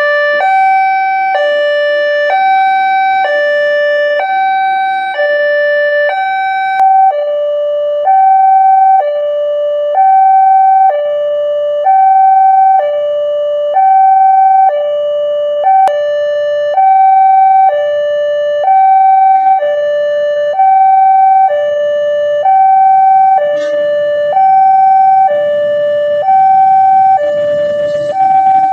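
Railway level-crossing warning siren sounding a steady two-tone high–low alarm, each tone held about a second and repeating evenly. It is the signal that a train is approaching and the crossing barrier is closing.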